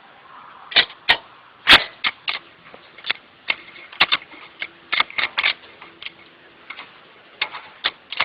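Irregular hard clicks and knocks from a large C-clamp being unscrewed and taken off a disc brake caliper, about one or two a second with a few quick clusters; the loudest comes about a second and a half in.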